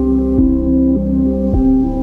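Ambient new-age music: soft sustained synthesizer notes over a low drone, changing pitch every half second or so.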